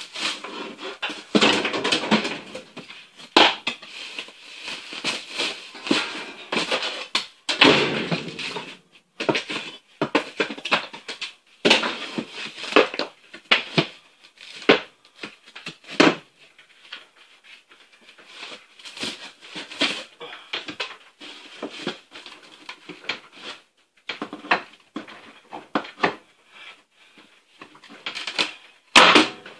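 Crowbar prying and bashing at a bathroom ceiling: irregular knocks, scrapes and creaks of metal on wood, with short crashes as pieces of ceiling break loose.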